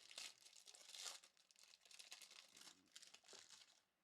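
Faint crinkling and tearing of foil trading-card pack wrappers being opened and handled, a run of short rustles that stops shortly before the end.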